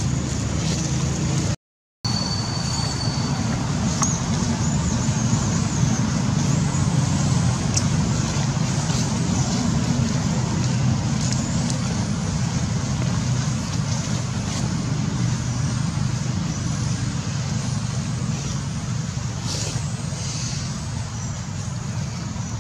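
Steady low outdoor rumble with a noisy hiss above it, like wind on the microphone or distant traffic, cutting out completely for about half a second near the start.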